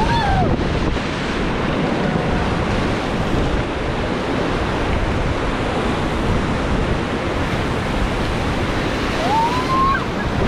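River whitewater rushing and splashing close around a rafting boat, with wind buffeting the microphone. A brief shout-like call at the very start and another near the end.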